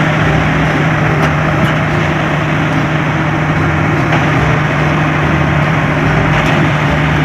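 Heavy truck engine running steadily, with a constant low hum under an even rumble.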